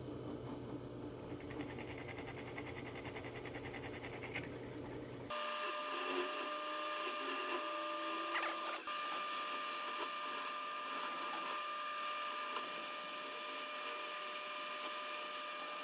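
Woodworking power tools running: a low steady machine hum, then, after a cut about five seconds in, a different machine with a steady higher whine.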